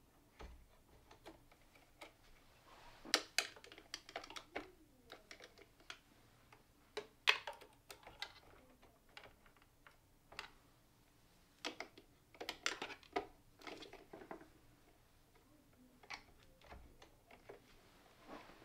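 Plastic filament feed tubes being handled and pushed into their push-fit connectors on a 3D printer's filament system: irregular light clicks and rustles, with a few louder clatters.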